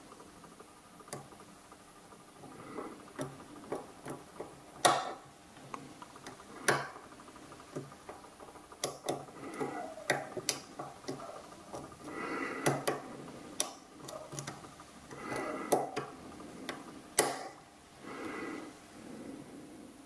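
A small steel hook pick working the pin stack of a padlock cylinder under bottom-of-keyway tension: irregular sharp metallic clicks as pins are lifted and set, with softer scraping between them.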